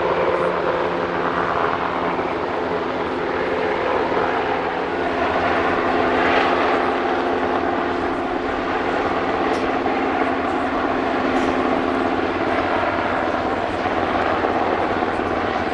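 US Coast Guard MH-60T Jayhawk helicopter hovering, a steady drone of main rotor and turbine engines.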